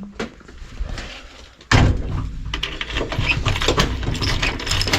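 A door being shut and locked: light clicks, then a sudden loud bang a little under two seconds in, followed by continued rattling and clicking.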